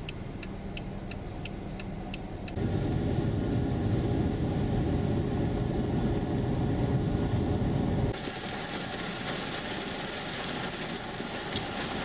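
Car interior sound: a low road hum with a fast, even ticking for the first couple of seconds, then a louder low rumble of the car driving on the highway. About eight seconds in it cuts to a steady hiss of rain.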